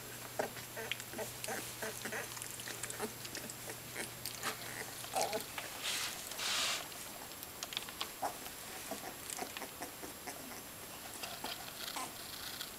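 Welsh Springer Spaniel puppies play-fighting: many short, soft grunts and squeaks, with scuffling on fleece bedding and a brief rustling burst about six seconds in.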